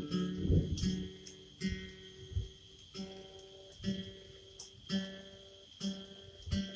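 Acoustic guitar played alone, a chord struck about once a second and left to ring and fade before the next.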